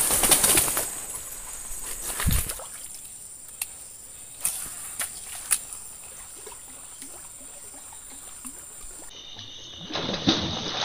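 Swamp-forest ambience with a steady high drone of insects and a few scattered clicks. Near the end comes a short splash on the water's surface.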